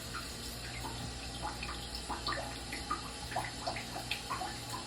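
Water trickling and splashing, with many small droplet plinks over a steady low hum.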